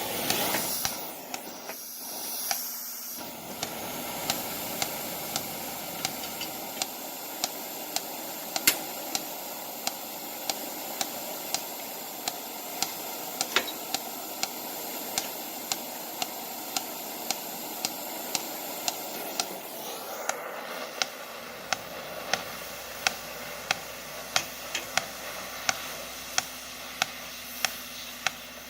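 Oxy-acetylene torch burning with a steady hiss and small pops every half second to a second, the popping of a dirty torch tip.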